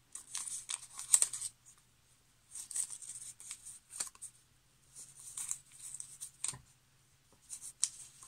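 A paper template and pieces of cut disposable face-mask fabric rustling and crinkling as they are handled, in several short bursts with a couple of light knocks on the table.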